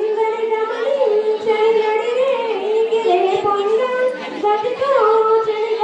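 A young woman singing solo into a microphone, holding long notes that glide from one pitch to the next.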